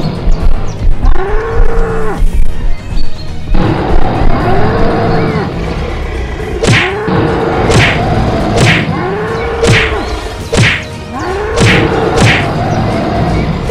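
Cartoon fight sound effects: a bull bellowing six times in drawn-out moos that rise and fall in pitch, with sharp whacks about once a second through the second half over a low rumble.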